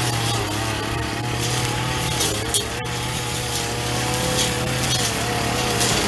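Backpack brush cutter's small engine running steadily as its head cuts through tall weeds, with a couple of sharp ticks about halfway through.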